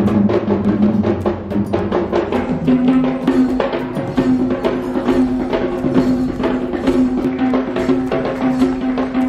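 Traditional Sri Lankan dance drumming: double-headed barrel drums beaten by hand in a fast, dense rhythm, with a held pitched note sounding over them on and off.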